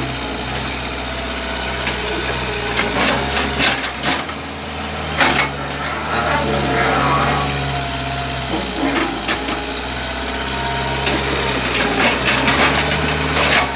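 Hitachi EX100-1 excavator's diesel engine running steadily, with sharp metallic clanks and knocks at intervals: a cluster a few seconds in, one about five seconds in, and another cluster near the end.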